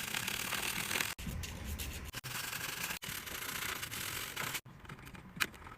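Steady scrubbing and rubbing on a keyboard as it is cleaned of dried dog urine, broken by abrupt edits into short stretches. It drops quieter near the end, with a few light clicks.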